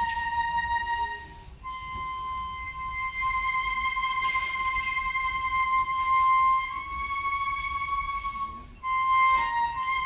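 Flute playing long held high notes that change pitch a few times, with a string ensemble faintly beneath.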